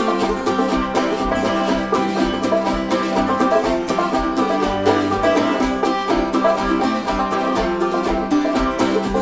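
Background music: an instrumental break between sung verses of a song, busy picked notes over a steady beat.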